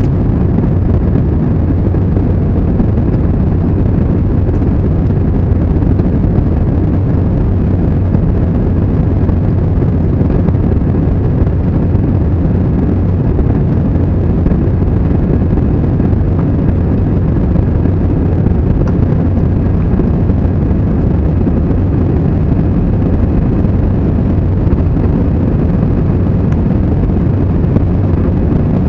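Steady low rumble of a jet airliner's cabin during the climb after take-off: engine and airflow noise heard from inside at a window seat.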